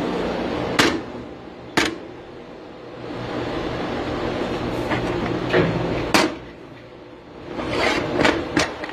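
A mini lathe hums steadily, falling away about a second in, with sharp metal knocks and clinks as a toothed steel disc is handled: two in the first two seconds, a couple more in the middle, and a quick cluster near the end.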